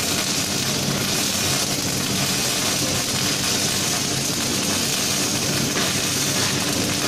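Robotic MIG welding arc burning steadily on steel, a continuous crackling hiss, with a steady low hum underneath.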